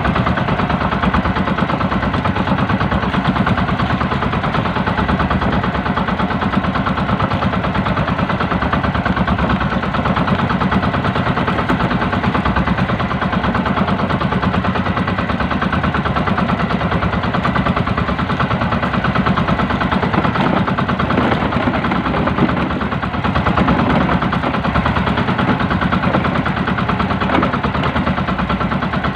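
The small engine of a motorized outrigger fishing boat running steadily under way, a loud, fast, even pulse of firing strokes.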